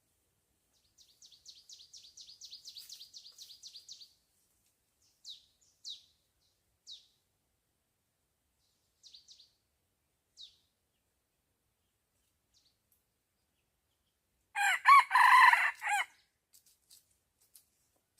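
A rooster crows once, loudly, for about a second and a half near the end. Earlier there is a quick run of high thin chirps lasting about three seconds, then a few single chirps.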